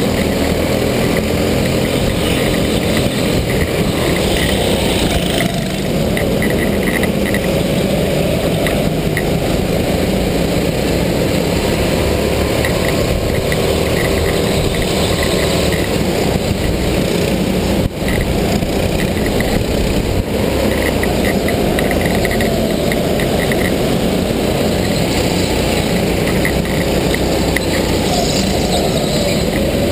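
Go-kart running at speed on a track, its engine note rising and falling through the corners, heard from the driver's seat under heavy wind noise.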